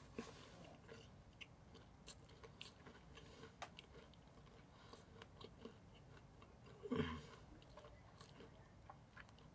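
Faint, close chewing: wet mouth clicks and smacks of someone eating a fried pie. One brief, louder mouth sound comes about seven seconds in.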